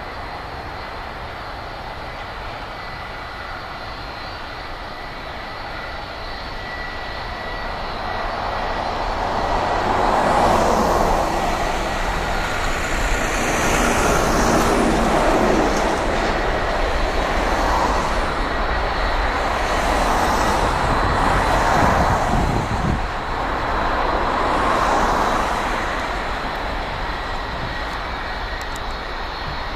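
Airbus A300-600 freighter's two Pratt & Whitney PW4158 turbofans at takeoff power on the takeoff roll: a steady roar with a thin high whine. The roar grows louder over the first ten seconds, swells and wavers, then eases off near the end as the jet pulls away down the runway.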